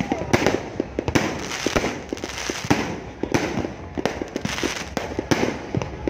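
Fireworks going off in a dense, irregular barrage: rapid bangs one after another with crackling between them, from many shells bursting at once.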